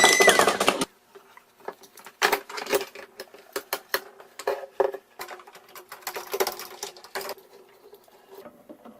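Small toy pieces clicking and rattling in quick, irregular bursts over a faint steady hum. A loud whistle-like tone cuts off within the first second.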